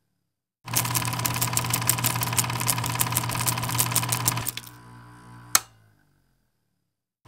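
A small motor-driven machine clattering rapidly and evenly over a steady hum. It starts about a second in, drops to a quieter run after about four seconds, ends with a single sharp click, and starts again at the very end.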